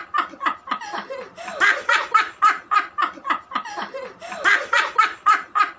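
A woman and a girl laughing hard together in a long run of quick ha-ha pulses, about four a second.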